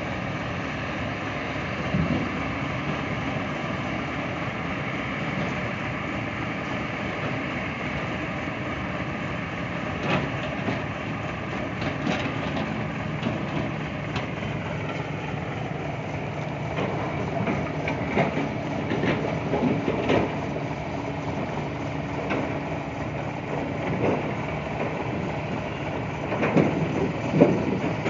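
Heavy diesel engines of a log-grapple loader and a logging truck running steadily, with scattered knocks and clatter of pulpwood logs that come more often in the second half and are loudest near the end.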